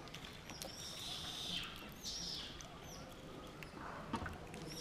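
Faint high chirping animal calls, several in a row in the first half, with scattered small clicks.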